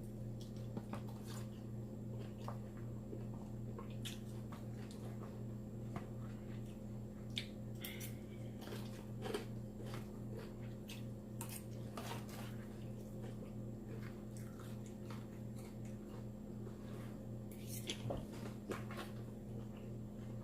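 Close-up eating of a salad with lettuce and croutons: irregular crisp bites, crunching and wet chewing. A steady low hum runs underneath.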